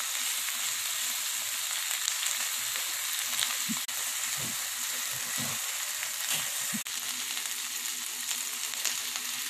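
Chopped capsicum, onion and tomato sizzling as they sauté in butter in a nonstick frying pan. A silicone spatula stirs them, with a few soft strokes against the pan in the middle.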